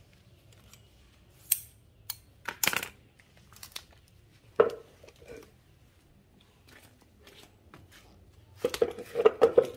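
Scattered clicks, clinks and knocks of metal machine parts and a steel vernier caliper being handled and set down on cardboard, with light cardboard rustling and a quick run of knocks near the end.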